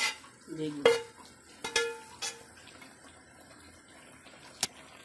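A spatula knocking and scraping against an aluminium cooking pot as vegetables are tipped in and stirred. There are a few ringing clinks in the first two and a half seconds, then quieter stirring and one sharp tap near the end.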